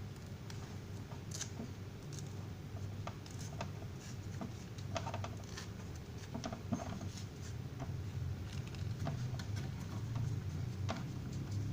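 Scattered light clicks, taps and scrapes of small handling sounds over a steady low hum.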